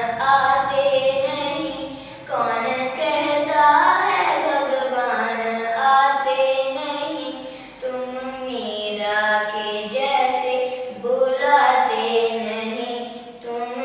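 A young girl singing solo, in long flowing phrases, with short breaks for breath about two seconds in, near eight seconds and just before the end.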